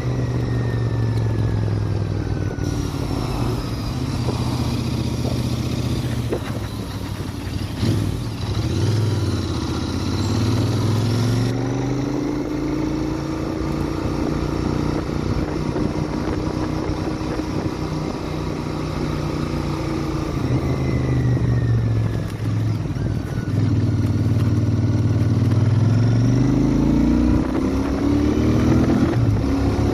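Royal Enfield Interceptor 650's parallel-twin engine running through its stock exhaust under way. Its pitch drops and climbs back up a few times: about eight seconds in, around twenty-two seconds, and near the end.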